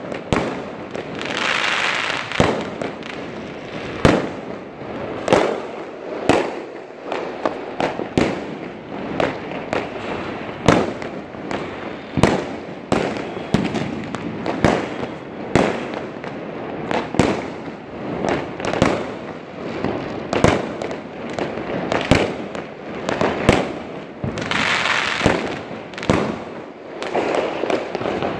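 Many fireworks going off at once: aerial shells and firecrackers banging in quick, irregular succession, with longer hissing stretches about two seconds in and again near the end.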